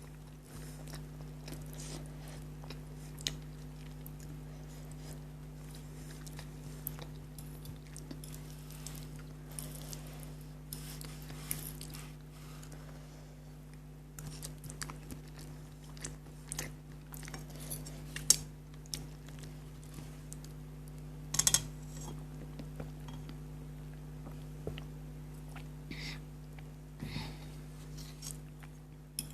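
Close-miked chewing of spicy noodles: soft wet mouth sounds and scattered sharp clicks, the loudest about 18 and 21 seconds in, over a steady low hum.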